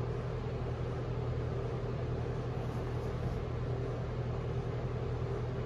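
Steady hum and rush of air from an electric fan running, with a low mains-like drone underneath.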